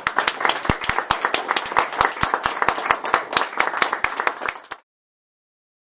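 Audience applauding, many hands clapping steadily, cutting off abruptly near the end.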